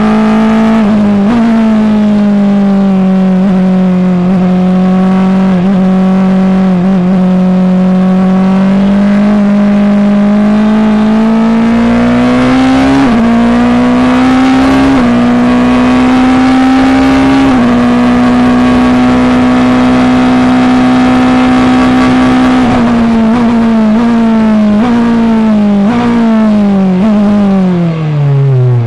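Formula Two race car's turbocharged four-cylinder engine heard from the onboard camera at high revs under power. The pitch climbs with short dips at upshifts about halfway through, holds steady, then falls in a run of steps as the car brakes and downshifts near the end.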